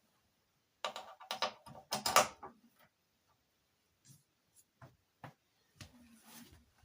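Handling noises: a quick run of clicks, knocks and rustles, then a few scattered clicks and a short rustle near the end, as of things being unpacked and handled.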